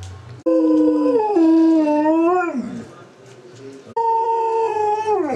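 Alaskan Malamute howling: two long howls. The first lasts about two seconds, wavers in pitch and slides down at the end. The second starts about four seconds in, holds steady and then falls away steeply.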